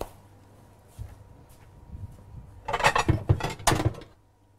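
Refrigerator door being opened and things handled inside it: a click at the start, a low thump about a second in, then a loud run of knocks and clinks about three seconds in.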